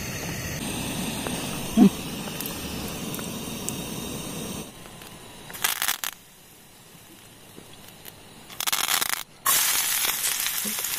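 Portable butane stove's burner hissing steadily under a pan, then hot oil sizzling in loud spurts as dried red chillies and then sliced onions go in; from about nine and a half seconds in the frying runs on as a steady sizzle.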